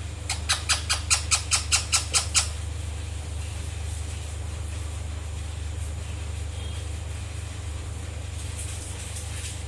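Indian ringneck parrot giving a rapid series of about a dozen short, sharp calls, about five a second, which stop after a couple of seconds. A steady low hum runs underneath.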